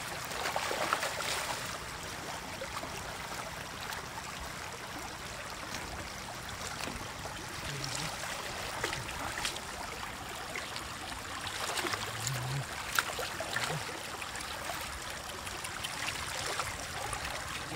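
Shallow water splashing and trickling as a person wades and handles a wicker basket in it, with water pouring out of the basket as it is lifted. Small splashes come at scattered moments over the steady sound of the water.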